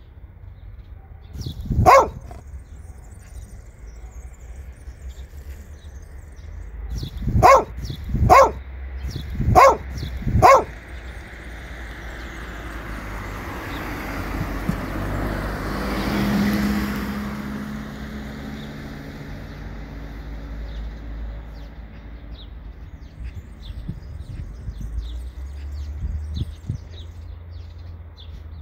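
A dog barks once, then four more times in quick succession a few seconds later. After that a rushing noise with a low hum swells and fades over several seconds, as of a car passing.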